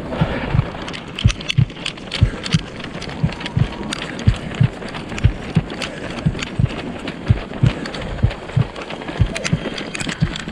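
A runner's footfalls on pavement, with the handheld camera jolting at each stride: a steady thud about three times a second over street and crowd noise.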